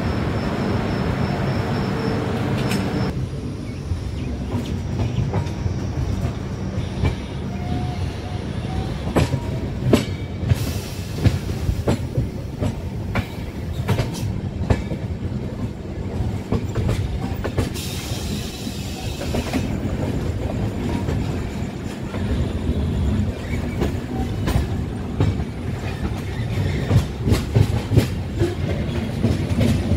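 Moving passenger train running on the rails: a steady low rumble with irregular clicks and knocks of the wheels over rail joints.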